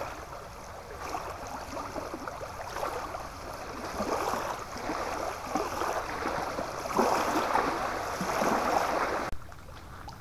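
Small waves lapping and splashing irregularly against a lakeshore, swelling louder a few times and cutting off suddenly near the end.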